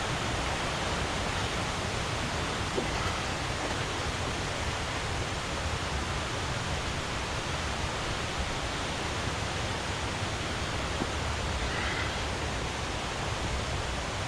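Steady rushing of a creek swollen with storm rain, running high with white water.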